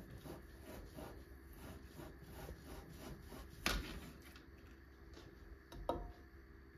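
Knife sawing back and forth through a chilled log of spiced ground meat on a cutting board, in rapid strokes about three or four a second. A sharp knock follows about three and a half seconds in, and a smaller one near six seconds.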